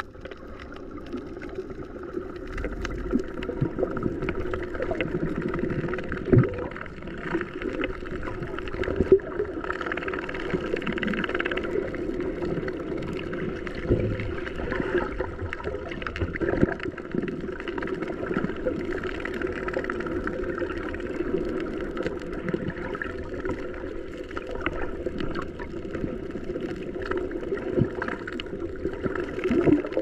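Fishing boat's engine running steadily, with a few scattered knocks.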